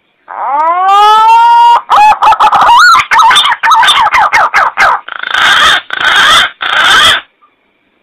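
Green pigeon (punai) call: a long rising whistle, then a quick run of warbling whistled notes, ending in three harsh rasping notes.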